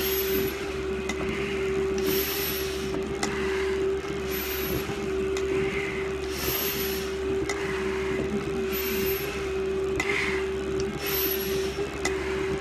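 Firefighter breathing hard through an SCBA facepiece and demand regulator during a stair climb: a rhythmic hiss of air about every two seconds, each with a faint high whistle, over a steady low hum.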